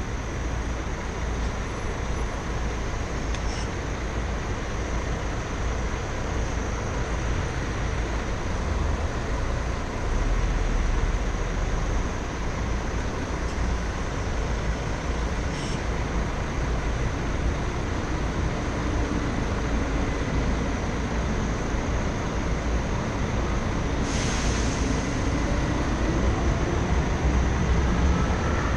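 Steady street traffic noise with a low engine rumble from cars and buses queued close ahead, and one engine note rising slowly in pitch through the second half as a vehicle speeds up.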